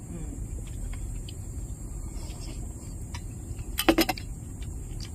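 Chopsticks and tableware clinking against bowls and dishes, with a quick clatter of several sharp clicks about four seconds in, over a steady low rumble.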